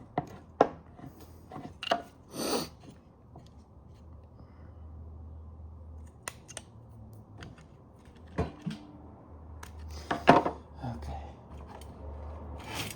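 Irregular sharp clicks and snaps of a car trunk latch actuator assembly being pried at and worked by hand, its plastic and metal parts clicking against each other.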